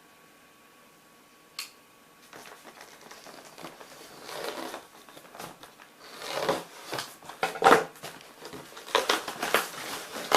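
A mail package being opened by hand: a single sharp click, then rustling, crinkling and tearing of the packaging in irregular bursts that grow louder toward the end.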